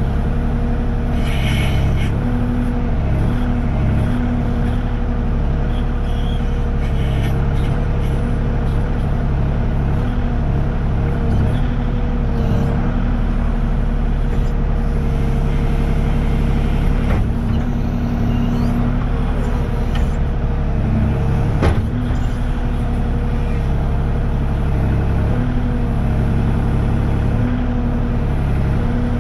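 Kubota KX040 mini excavator's diesel engine running steadily under working load with a steady hum, as the bucket teeth are dragged through the soil to grub out palmetto roots. A couple of sharp knocks come through in the second half.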